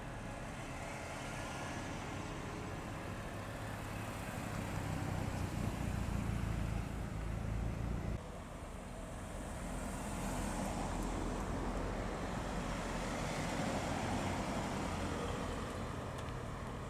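Modern Mini hatchbacks and a Countryman driving slowly past one after another, engines running with a steady low hum and tyre noise. The hum swells as a car comes close, stops abruptly about eight seconds in, then builds again as the next car passes.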